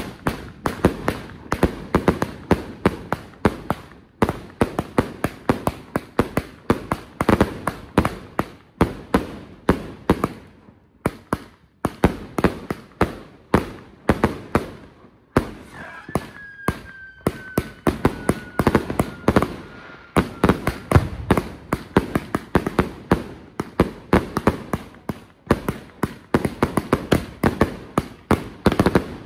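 Fireworks going off in dense, rapid volleys of sharp bangs, several a second, with a few short lulls. About halfway through, a long whistle slowly falls in pitch over the bangs.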